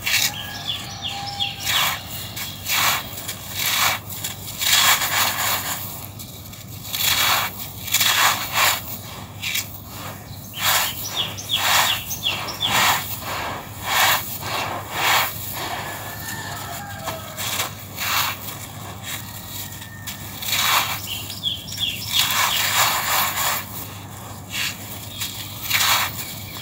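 Clumps of dry sand-like crushed yellow stone are crumbled by hand, with gritty crunching and grains pouring through the fingers. The crunches come in repeated bursts, about one every second or two.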